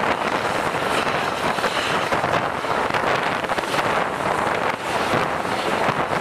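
Steady wind rushing over the microphone held out of a moving train's coach window, mixed with the train's running noise on the track.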